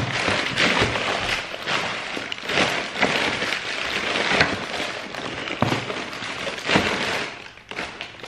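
Crumpled newspaper packing rustling and crackling as it is pulled out of a cardboard box. It quiets down near the end.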